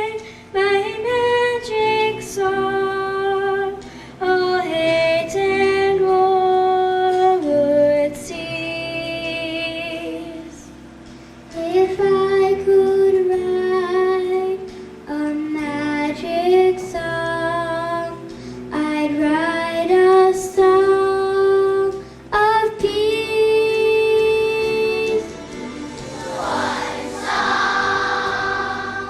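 Children's choir singing a slow song in unison over held accompaniment notes.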